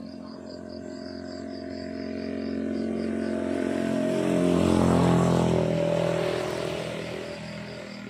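A vehicle drives past on the road: its engine hum swells, peaks about five seconds in with its pitch dropping as it goes by, then fades. Crickets chirp in a fast pulsing rhythm underneath and are drowned out while it passes.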